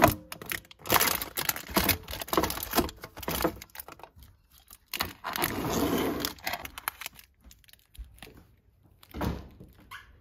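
Rummaging in a pantry shelf: clear plastic storage bins clacking and sliding and snack packaging rustling, in a string of irregular clicks and short rustles.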